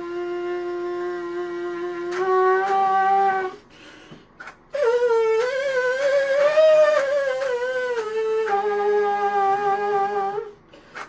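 3D-printed rectangular trumpet playing a slow tune in long held notes. A low note steps up slightly, breaks off for a breath about four seconds in, then comes back on a higher, wavering note that settles onto a lower one before another short break near the end.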